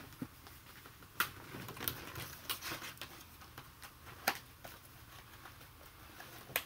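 Clear plastic blister packaging and cardboard backing being handled and pried apart, giving scattered crackles and sharp clicks, the loudest about a second in and again just past four seconds.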